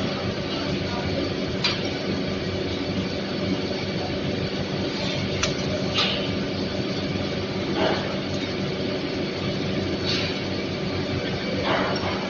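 Power-and-free overhead conveyor running: a steady mechanical hum, with about six short sharp metal clacks scattered through it.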